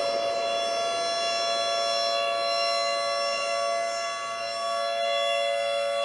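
Canadian civil-defence nuclear-warning siren sounding a steady held tone made of two close pitches together, with a brief slight dip in loudness about four seconds in.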